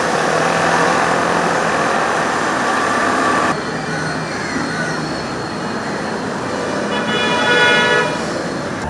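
Steady outdoor city traffic noise, a continuous rumble and hiss that drops in level about three and a half seconds in. Near the end a brief pitched tone with several overtones rises above it.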